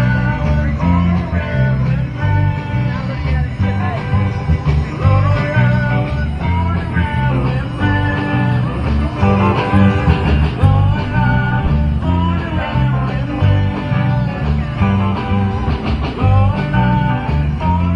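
Rock/blues music with electric guitar over a steady bass line and beat.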